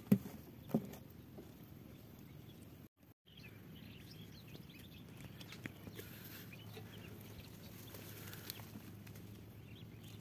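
Two sharp knocks about a second apart near the start, then a faint steady outdoor background with a few faint chirps.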